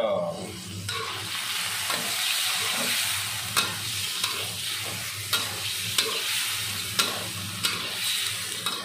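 Chicken pieces sizzling in hot oil and thick dark soy sauce in a wok while a steel spatula stirs and scrapes them, with a steady frying hiss. From about three seconds in, the spatula clinks sharply against the wok several times.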